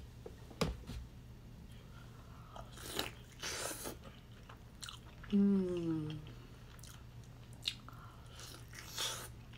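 Close-miked eating sounds of a hot fried chicken drumstick: soft blowing on the hot meat, a brief falling vocal hum, then biting into the crispy coating near the end, with small mouth clicks throughout.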